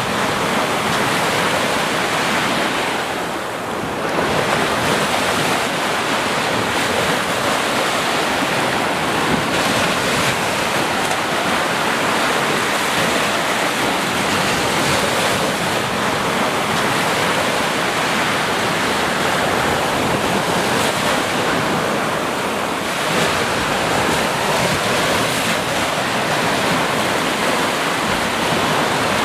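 Sea waves and surf making a continuous wash of noise, which eases briefly about three seconds in.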